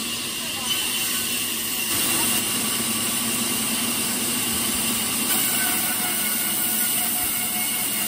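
Large sawmill band saw running steadily, its blade cutting through timber: an even hiss over a low hum.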